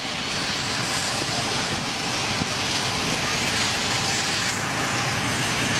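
Helicopter running, a steady rushing noise of engine and rotors.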